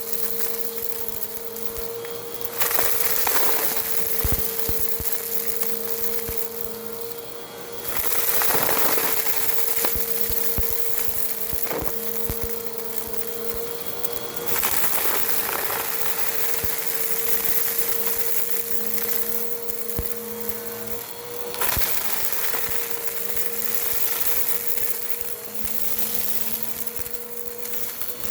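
Bissell vacuum cleaner running close up at its brushroll: a steady motor whine under a rushing hiss that swells and falls every few seconds, with scattered small ticks and crackles.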